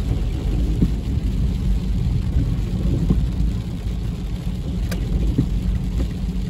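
Car driving in rain, heard from inside the cabin: a steady low road and engine rumble, with a few faint sharp ticks.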